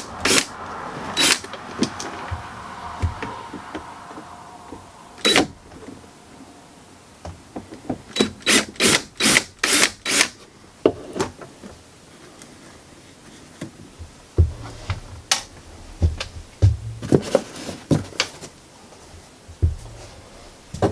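Sharp clicks and knocks of a wall-mounted access panel being worked loose and taken off, some single and some in quick runs of several, with light rubbing and handling noise in between.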